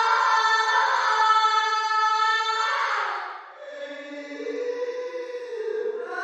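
A woman's voice wailing in a long, high held cry that fades out about three seconds in, followed by a quieter, lower wavering moan; a new rising wail starts right at the end.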